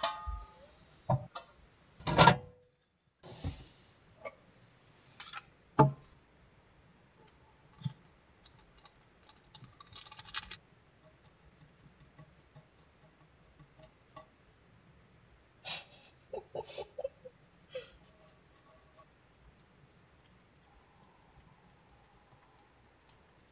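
Scattered knocks and clinks of a stainless steel pot and eating utensils being handled, with quiet gaps between; the loudest knock comes about two seconds in.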